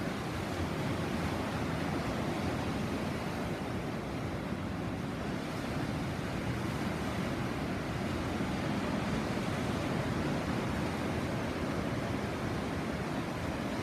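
Sea waves washing ashore, a steady, continuous surf sound without distinct breaks.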